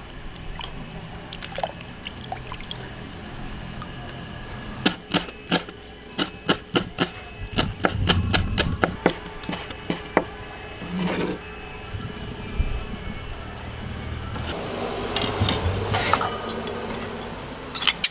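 Hands swishing and rubbing leafy greens in a basin of water, then a steel kitchen knife chopping the leaves on a cutting board in a quick run of sharp chops, about two or three a second.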